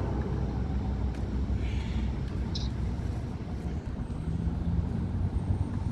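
Low, steady rumble of moving vehicles, with a brief hiss about two seconds in.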